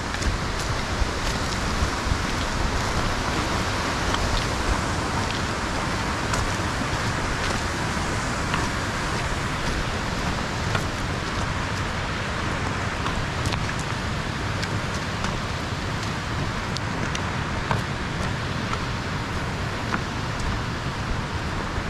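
Steady rushing of a stream's flowing water, with scattered faint clicks.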